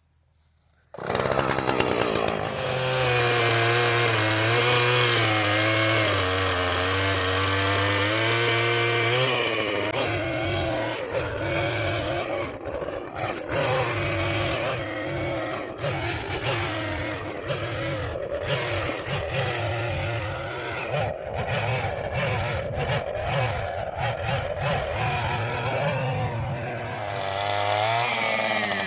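Husqvarna two-stroke chainsaw comes in suddenly about a second in, running at high revs with a wavering pitch. From about ten seconds in it is cutting into the wood, its note rough and uneven under load, and near the end the revs drop away.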